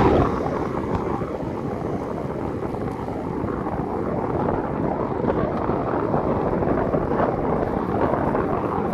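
Wind rushing over the microphone of a camera riding along on a road bike, a steady rumbling buffet, heaviest for a moment at the very start.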